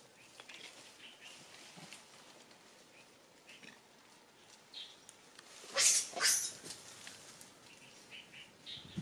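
Outdoor animal sounds: faint, short high chirps here and there, and two short, harsh, noisy calls in quick succession about six seconds in.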